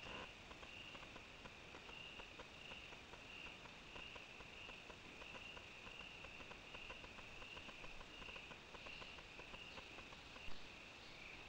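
Faint crickets chirping in a steady, high-pitched rhythm, about two pulses a second, with scattered light ticks and a single sharp click about ten seconds in.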